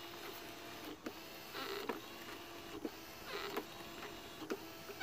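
Windshield-wiper motor driving one wheel of a remote-controlled lawnmower through a chain, running with a faint steady whine broken by a few sharp clicks and two short scraping rattles. Only one drive motor is fitted, so the mower lacks traction.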